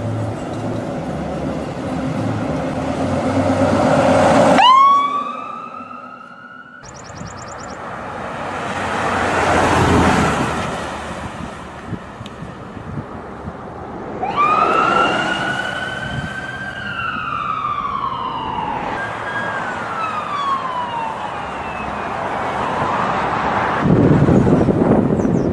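Ambulance siren wailing in slow rising and falling sweeps over traffic noise. One wail climbs and breaks off suddenly about five seconds in; another rises about fourteen seconds in and sinks over the next few seconds, followed by a further falling sweep.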